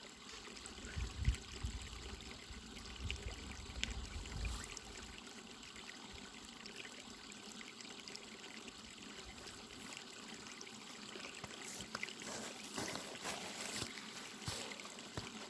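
Small mountain creek trickling steadily over rocks. A low rumble in the first few seconds and a few light knocks near the end.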